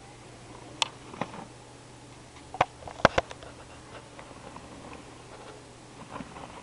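A few sharp clicks and knocks, the loudest cluster in the middle, over a low steady hum.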